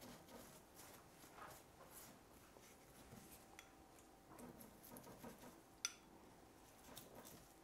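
Near silence, with faint soft dabbing of a pastry brush on a cake and one sharp light clink about six seconds in, as the brush hits the small glass bowl of lemon juice.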